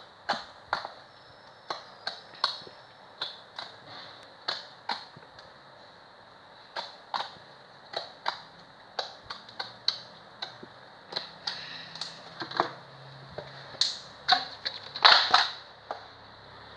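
Slime being pressed and poked by hand, air pockets popping in irregular sharp clicks, with a louder, quicker run of pops near the end.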